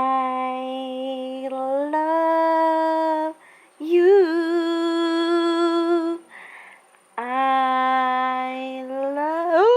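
A woman humming three long held notes, with a breath between each. The first note steps up in pitch partway through, and the last slides upward at its end.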